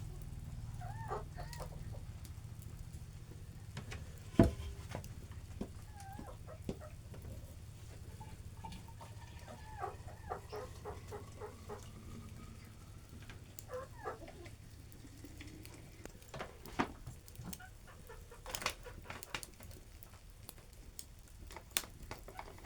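Chickens clucking on and off, with a low steady rumble through the first half. A single loud knock comes about four seconds in, and a few sharper clicks follow near the end.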